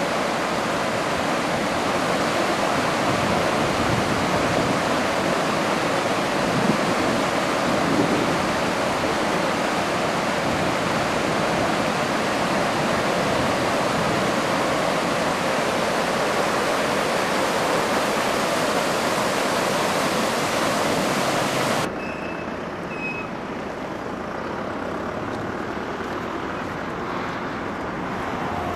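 Floodwater of the Jizera river rushing across a road, a loud steady noise of fast water. About 22 seconds in it cuts off suddenly to a quieter, steady wash of water.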